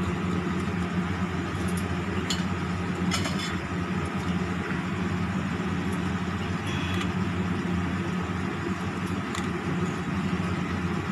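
Steady low mechanical hum, like a motor or fan running, with a few faint light clicks.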